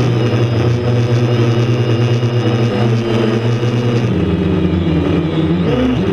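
DJI F550 hexacopter's six brushless motors and propellers whirring, picked up by the camera mounted on the frame: a steady hum of several stacked tones. About four seconds in the pitches shift and then begin to waver up and down as the motors change speed while the craft banks.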